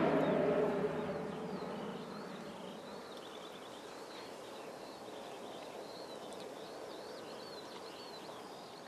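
Aircraft engine noise fading away over the first couple of seconds, leaving quiet open-air airfield ambience with small birds chirping repeatedly.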